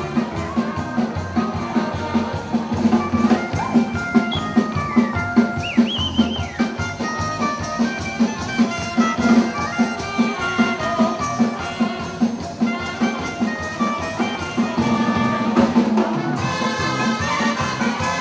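Live dance band playing: brass and clarinet melody over a steady drum beat.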